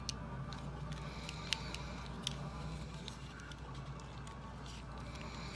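Plastic Transformers toy parts clicking and snapping as the figure's joints and limbs are moved by hand, a handful of sharp separate clicks over a steady low hum.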